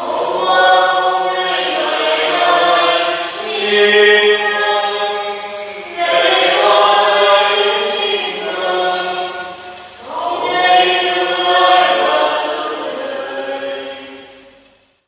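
A church choir singing in several long phrases, fading out near the end.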